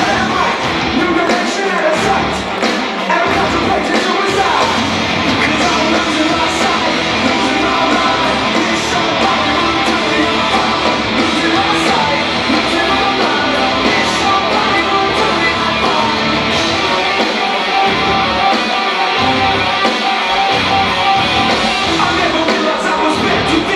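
Rock music with singing and guitar, played loud and without a break: the soundtrack of a bodybuilding posing routine.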